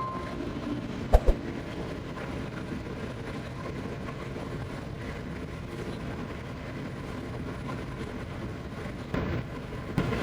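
Steady mechanical rumble of bakery machinery, with two short knocks about a second in.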